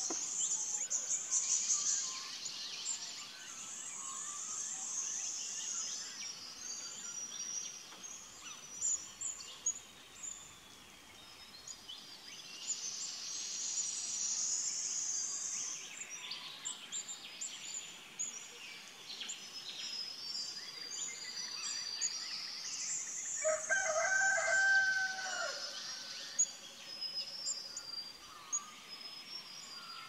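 Morning chorus of many small birds chirping and twittering. A rooster crows once, for about two seconds, about two-thirds of the way in.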